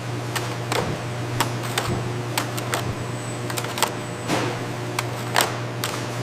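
Factory machinery running with a steady low hum and irregular sharp clicks and clacks, about three a second.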